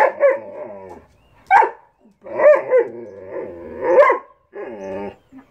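Large long-haired dog barking and grumbling in play, a run of about five drawn-out calls that bend in pitch.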